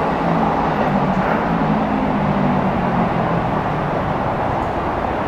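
Tokyo Waterfront Area Rapid Transit 70-000 series electric train running at the platform: a steady, loud rumble of wheels and traction equipment, with a low hum that fades away about three seconds in.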